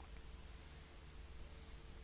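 Near silence: only a faint steady hiss and low hum from the recording's background.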